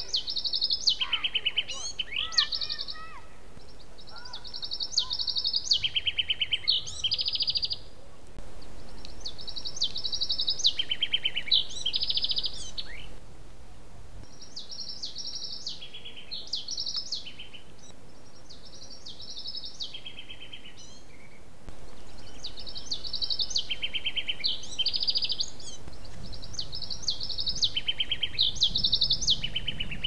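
A songbird singing: the same song repeated over and over, each phrase a run of high trills about two seconds long that steps down in pitch, with a few seconds between phrases. A few lower, sliding calls from another bird come in about two seconds in.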